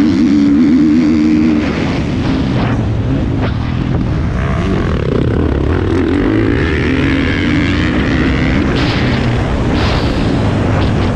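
Motocross bike engine running hard, its pitch rising and falling as the throttle is worked and gears change.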